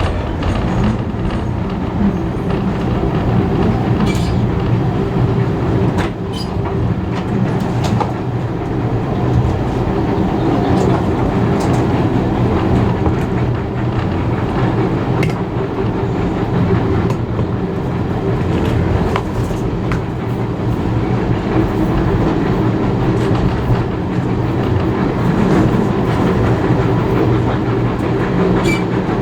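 Passenger carriages of a steam-hauled train running along the track: a steady rumble of wheels on rails, with occasional sharp clicks as the wheels pass over rail joints.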